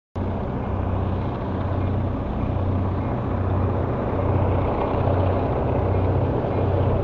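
A pair of EMD GP38-2 diesel locomotives, each with a non-turbocharged two-stroke V16 engine, running under load while lugging a freight train. Their exhaust makes a steady, loud, low drone.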